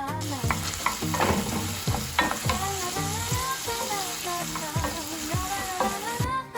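Diced vegetables (carrot, onion and red pepper) sizzling in hot oil in a pan, with a few sharp clicks partway through. The sizzle cuts in just after the start and cuts off abruptly just before the end.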